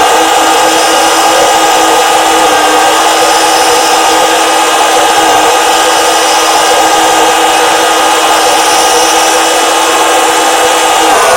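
Electric drive motor and plastic gears of a radio-controlled model tractor, whining steadily with a gritty, buzzing grind, the pitch shifting a little near the end.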